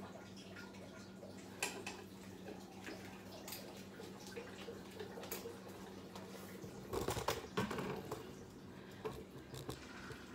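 Quiet room with a faint steady low hum and scattered light clicks; about seven seconds in, a short cluster of knocks and rustling from the camera being handled and moved.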